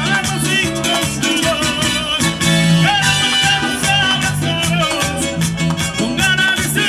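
Live Latin dance band playing with a steady beat: a male lead vocal over bass, drum kit and hand percussion.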